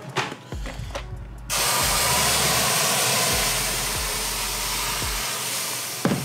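Water poured into a hot oven hisses into steam, starting suddenly about a second and a half in and slowly dying away, to give the loaf a steamy bake. A few light knocks come before it and a sharp click near the end.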